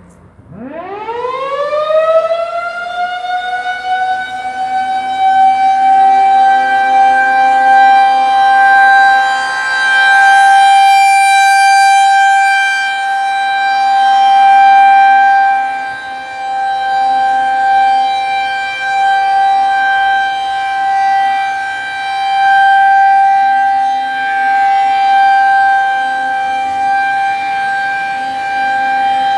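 Outdoor tornado warning siren sounding for an equipment test. It winds up from a low growl to a high steady wail within the first couple of seconds, then holds one steady pitch, swelling and fading in loudness every several seconds.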